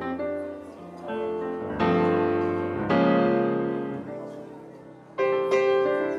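Slow piano music: chords struck every second or two and left to ring and fade.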